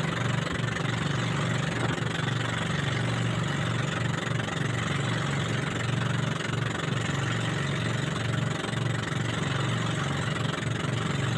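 Motorized bangka's engine running steadily under way, with a steady rush of water and wind.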